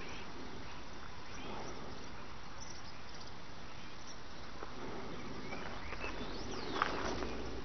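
Outdoor field ambience: a steady hiss of background noise with faint scattered chirps, and a brief falling sweep and a sharp click near the end.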